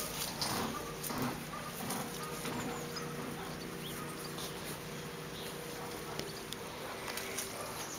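Welsh Terrier puppies play-fighting on dirt and straw: scuffling and scratching with a few faint short yips, over a steady low hum.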